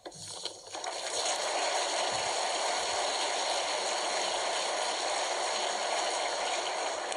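Audience applauding, building up within about the first second and then holding steady.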